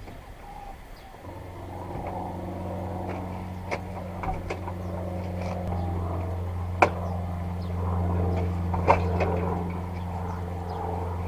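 A machine running with a steady low hum that starts abruptly about a second in, with a few sharp knocks over it.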